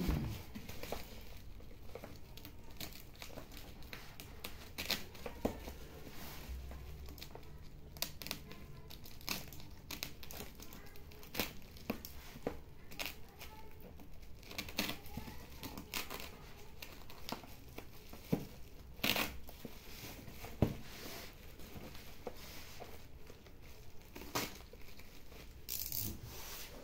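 A plastic-wrapped parcel being slit with a utility knife and pulled open: irregular crinkling and tearing of the plastic wrap, with sharp crackles now and then.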